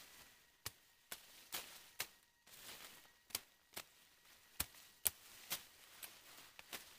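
Machete chopping through undergrowth stems: about a dozen sharp cutting strikes at uneven intervals, with leaves rustling between them.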